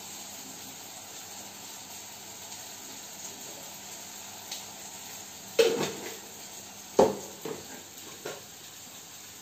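Onion and tomato masala sizzling steadily in oil in a kadai on a gas stove. Two sharp knocks come past the middle, with a few lighter ticks after them.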